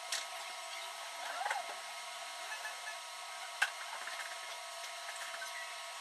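Steady hiss of room tone with a few faint clicks, the sharpest about three and a half seconds in, and a faint, muffled voice-like sound briefly about a second and a half in.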